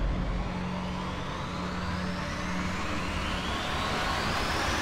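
A horror-trailer sound-design riser: a hissing noise sweep climbing steadily in pitch and slowly growing louder over a steady low hum, building tension.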